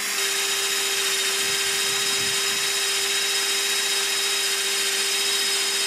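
Parkside PTBM 710 A1 bench drill press motor running steadily at about 890 rpm while its 10 mm bit drills into steel flat bar under load. The sound is an even whine with one constant hum, and the motor holds its speed under the cut.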